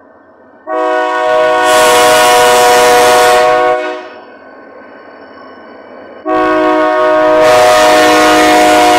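Diesel freight locomotive's multi-tone air horn sounding two long blasts, a warning for the level crossing, with the locomotive running more quietly between them.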